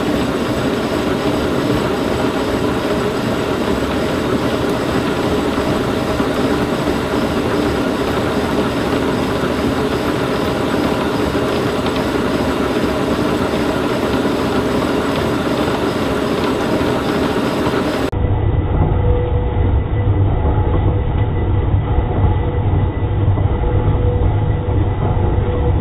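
Defiance horizontal boring mill running with a 5-inch, 8-insert carbide face mill cutting across a welded steel angle plate: a loud, steady machining drone with a set of steady tones. About 18 seconds in, the sound abruptly turns duller and heavier, with a deep low rumble.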